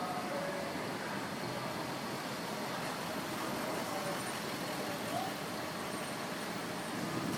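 Steady city street noise: a continuous rumble of road traffic.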